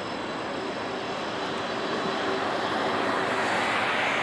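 Airbus A330-300's twin Rolls-Royce Trent 700 turbofans at takeoff thrust: a broad, steady jet noise that grows louder over the last two seconds as the airliner rotates and lifts off.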